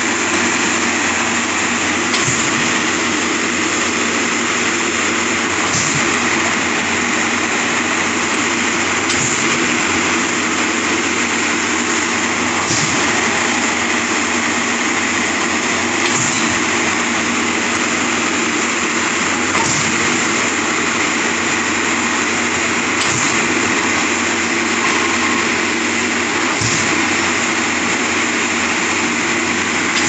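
Diesel engine of a trailer-mounted concrete pump running steadily under load while pumping concrete, with a light knock about every three and a half seconds as the pump cycles its pistons.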